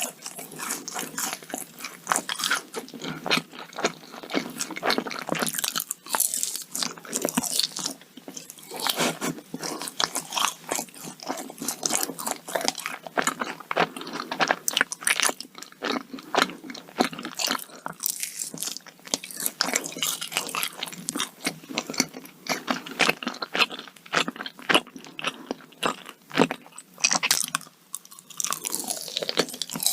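A person biting and chewing yakgwa, Korean fried honey cookies, with dense, irregular crunches throughout.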